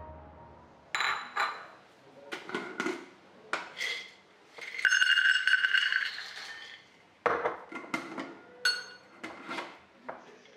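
Raw cashews poured from a glass jar into a small copper measuring cup, rattling and ringing against the metal for a little over a second about five seconds in. Sharp clinks and knocks of the jar, its lid, the cup and a ceramic bowl being handled come before and after.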